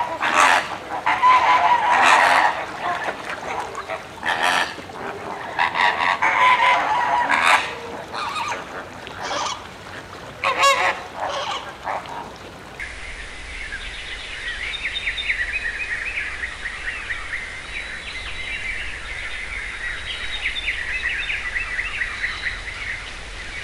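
A flock of greater flamingos honking, with loud goose-like calls coming one after another. About twelve seconds in, the sound changes to a steady, dense chatter of small high calls.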